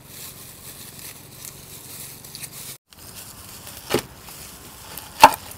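A chef's knife working an onion on a wooden cutting board: faint rustling of plastic gloves and papery onion skin, then a sharp knock about four seconds in and a louder one near the end as the blade hits the board.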